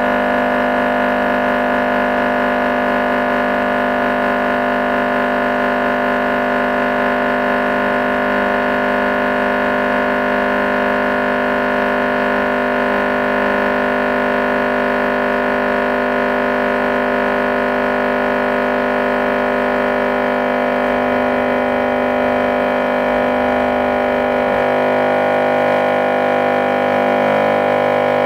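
10-inch car subwoofer driven with a steady test tone at about 1250 W, roughly twice its rated power, in an overload crash test; a loud, unbroken buzzing tone with many overtones that shifts slightly about three-quarters of the way through.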